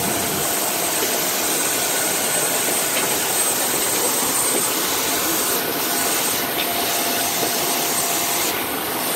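Aircraft jet turbine noise: a loud, steady hiss with a thin high whine running through it.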